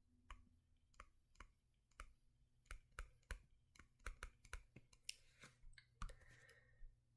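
Faint, irregular small clicks and taps, a few a second, with a short scratchy rustle about five seconds in.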